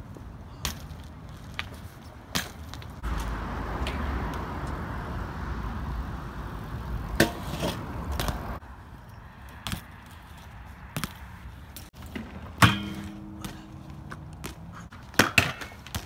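BMX bike riding on concrete: tyres rolling with a steady rush and low rumble, broken by sharp clacks and knocks of tyres and pegs landing on and tapping ledges and steps. One loud impact past the middle rings on briefly with a metallic tone.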